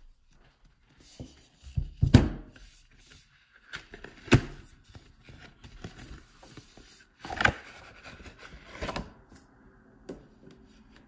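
Cardboard presentation box being handled and set down on a marble tabletop: a few knocks and thuds, the loudest about two seconds in, with light scraping and rustling of the box in between.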